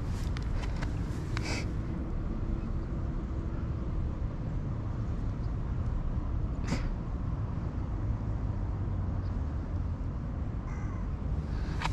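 Steady wind rumble on the microphone, with a few short sharp clicks or knocks, about a second and a half in and again a little past halfway.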